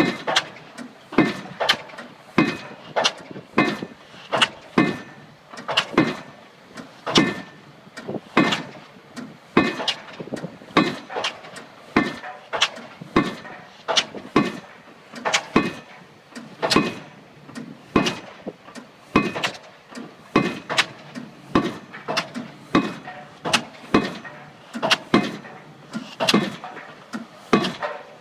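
Junttan pile driving rig's hydraulic impact hammer striking a pile over and over in a steady rhythm: a heavy blow about every second and a bit, with lighter knocks in between.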